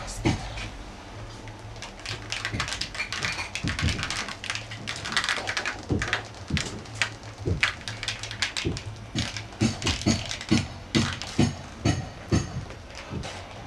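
Irregular sharp knocks and taps, at times several a second, over a low hum and scuffling noise.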